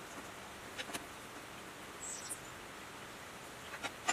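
A thin wire being pulled through the metal arm of a miter saw, giving a few light clicks and ticks about a second in, faintly around two seconds, and a quick cluster near the end, over a steady soft hiss.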